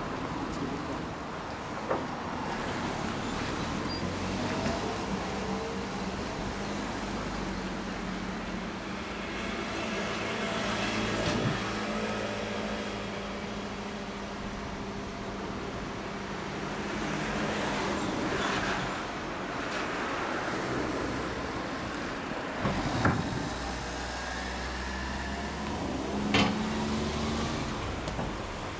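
Yamaha YZF-R1's crossplane inline-four idling steadily through a Two Brothers Racing V.A.L.E. dual slip-on exhaust with carbon silencers, with a few short sharp clicks.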